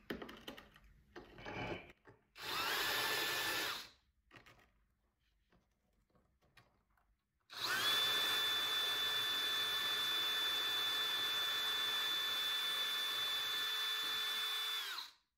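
Cordless brushless drill with a diamond bit grinding a hole into a lava rock held under water. A short run of about a second and a half, then a steady run of about seven seconds; the motor's whine rises as it starts and falls away as it stops.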